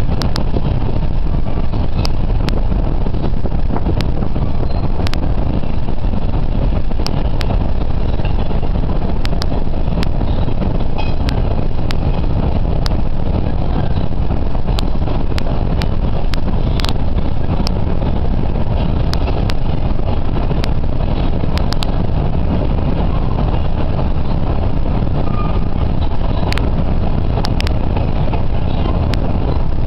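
Freight train of boxcars and covered hoppers rolling past, a steady low rumble with scattered sharp clicks and clanks throughout.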